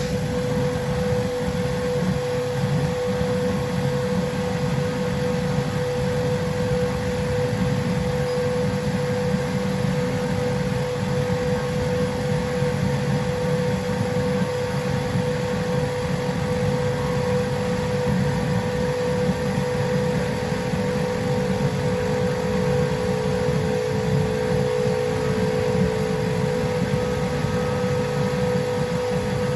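Dental CAD/CAM milling machine cutting a zirconia block: a steady whine over a continuous low grinding rumble, with a second, higher tone joining near the end.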